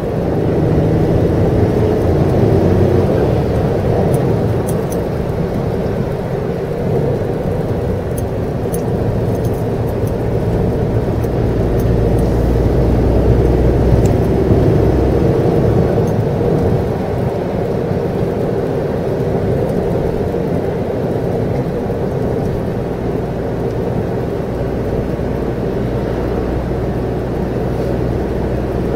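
Suzuki Jimny JB64 at a steady cruise, heard from inside the cabin: its turbocharged three-cylinder engine running under a steady rumble of tyres on the road, with a few light clicks in the first half.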